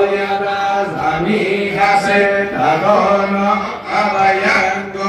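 Hindu aarti chanting: voices chant a devotional hymn in long held phrases with short breaks between them.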